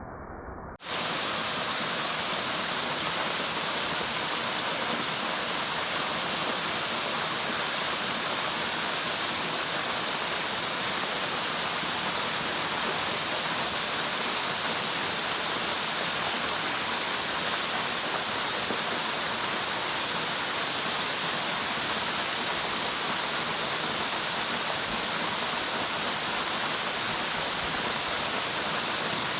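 Steady rush of falling water from a waterfall, an even hiss that starts suddenly about a second in and holds unchanged.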